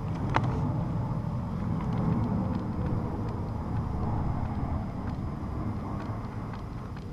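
Wind rumbling on the microphone, with a sharp click about half a second in and a few faint clicks later. The clicks come from the plastic front suspension arms and hub carrier of an HPI Savage X 4.6 knocking as the hub is rocked by hand through the play in their mounts.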